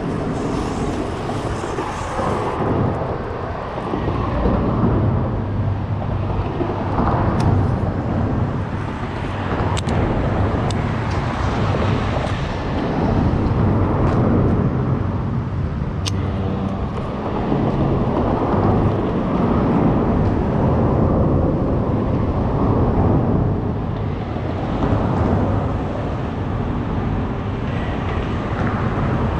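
Road traffic on a concrete highway bridge: a steady low rumble that swells and fades as vehicles pass.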